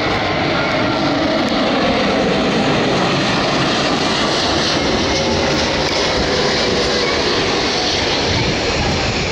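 Boeing 787-8's Rolls-Royce Trent 1000 turbofans passing low overhead on approach with the landing gear down: a loud, steady jet rush.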